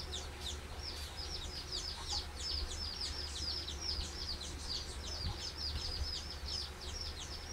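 A small bird chirping over and over, each chirp a quick high falling note, about four a second without a break.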